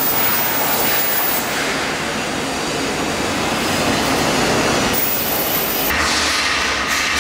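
Steady background din of an industrial workshop, a loud even rushing noise, changing in tone about six seconds in.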